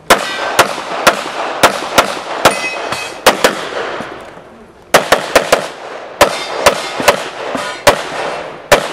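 Pistol shots fired in rapid strings during an IPSC stage, about eighteen in all, with a pause of about a second just before the middle as the shooter moves or reloads. Each shot rings out with a short echo.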